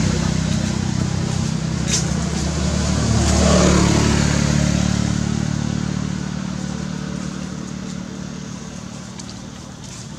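An engine running and passing by, growing louder for the first few seconds and then fading away, with one short sharp click about two seconds in.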